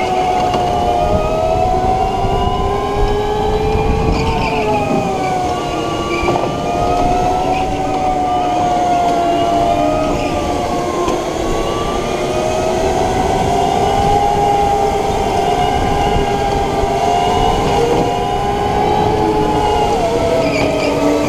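Indoor racing go-kart heard from the driver's seat: the motor's whine glides up and down with speed through corners and straights, over a steady rumble of tyres and chassis on the concrete.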